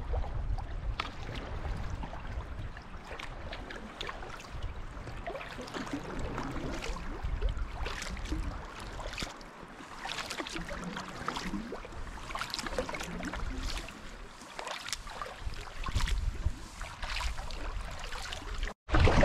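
Kayak paddling: the blades of a double-bladed paddle dipping into and pulling through calm river water, with irregular splashes and drips, over a low rumble. The sound drops out for a moment near the end.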